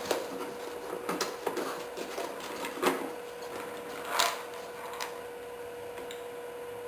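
Handling noises as a new plastic foot pedal is taken out of its cardboard box: scattered light clicks and rustles, the two loudest about three and four seconds in, over a faint steady hum.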